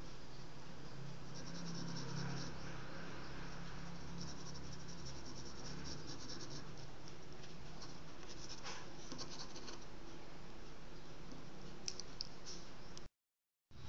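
Pencil scratching on drawing paper in short spells of light strokes, over a steady background hiss. A couple of sharp clicks come near the end, then the sound cuts out briefly.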